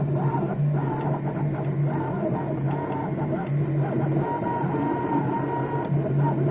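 Stepper motors of a DIY CNC laser gantry running under Mach3 control, whining in tones that change pitch as the axes move and stop, over a steady low hum.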